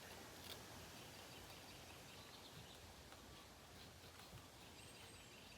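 Near silence: faint outdoor background noise with a faint tick about half a second in.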